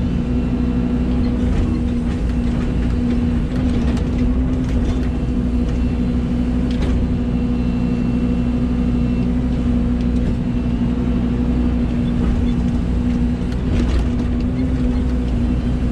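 Excavator's diesel engine running steadily, with a few light knocks and clanks over it.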